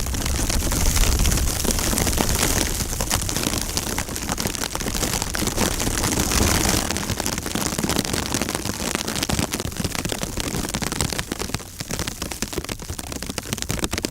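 Snowstorm wind with a dense patter of snow pelting a surface. Gusts rumble heavily for the first half and ease off after about seven seconds.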